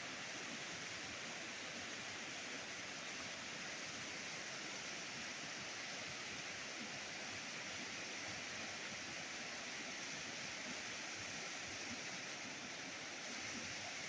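Waterfall's falling water rushing in a steady, unbroken hiss.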